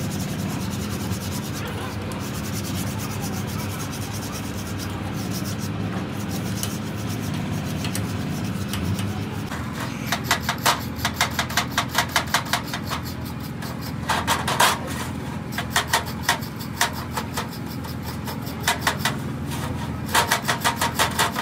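A brush scrubbing gearbox parts clean in kerosene. Quick rasping strokes, several a second, come in bursts from about ten seconds in, over a steady low hum.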